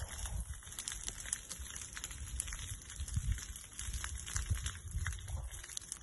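Burning brush and grass crackling, a scatter of sharp little pops, over low irregular thumps and rumble.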